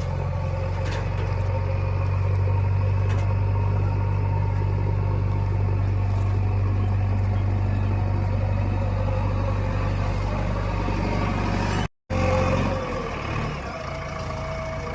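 JCB 3DX backhoe loader's diesel engine running steadily with a deep hum. The sound cuts out for a moment about twelve seconds in, then carries on a little quieter.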